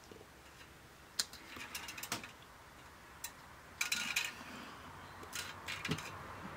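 Scattered light clicks and scrapes of a small screwdriver and plastic parts being worked inside a Technics CD changer's mechanism, as an adjustment is turned clockwise. There is a short cluster of clicks about four seconds in.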